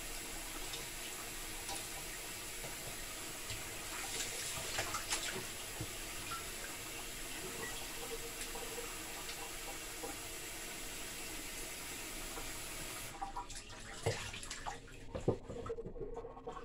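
Kitchen tap running into a stainless steel sink while raw chicken pieces are rinsed and rubbed by hand under the stream. The water is shut off about three-quarters of the way through, followed by a few light knocks in the sink.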